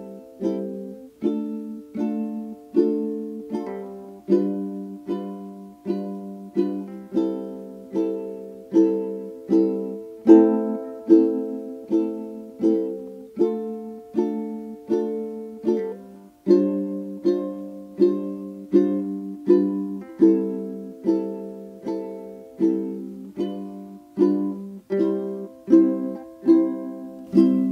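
Background music: strummed ukulele chords in a steady, even rhythm.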